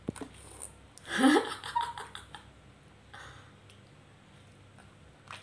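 A young girl's short, breathy vocal outburst about a second in, its pitch rising, followed by a few small clicks.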